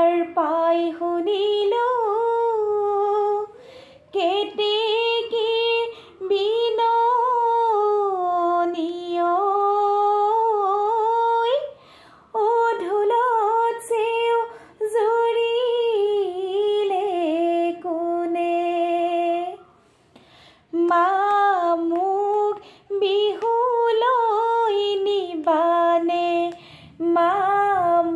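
A woman singing an Assamese Bihu naam unaccompanied, in long held notes that waver and bend, phrase after phrase with short breaks for breath between them.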